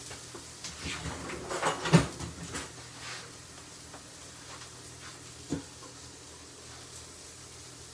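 A few light knocks and clinks of kitchenware, a stainless steel mixing bowl handled on a glass cooktop beside a frying pan: a small cluster about two seconds in and a single knock about five and a half seconds in, over a faint steady hum.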